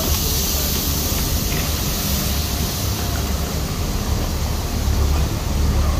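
Steady hiss with a low rumble underneath on the platform beside a stopped RER B commuter train. The hiss is strongest in the first couple of seconds.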